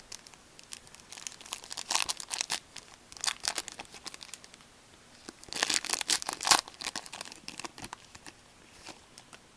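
Trading card pack wrapper crinkling and tearing open in three bursts of crackling, about two, three and a half, and six seconds in.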